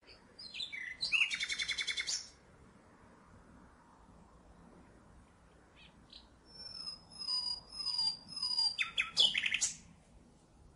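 Common nightingale singing two song phrases. The first is a few descending notes running into a fast, loud trill. After a pause of a few seconds comes the second: a string of repeated whistled notes that ends in another rapid trill.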